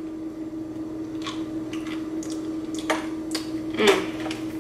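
Someone chewing a bite of a crunchy sprinkle cookie: a handful of short, irregular crunches, the loudest near the end, over a steady low hum.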